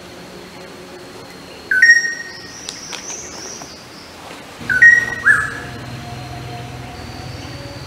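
A bird giving short, sharp calls that slide up and then hold briefly: one about two seconds in, then two in quick succession around five seconds. Underneath runs a steady background hum.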